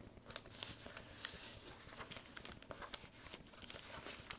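A sheet of paper rustling and crinkling as it is folded and smoothed flat by hand, with scattered small scrapes and clicks.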